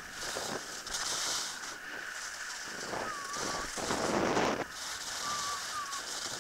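Skis hissing over snow with wind buffeting the microphone, the loudest swish about four seconds in. Faint short calls come from further off.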